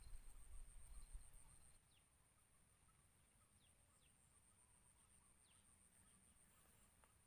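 Near silence: a faint, steady high insect trill with a few brief, faint bird chirps, and a low rumble in the first two seconds.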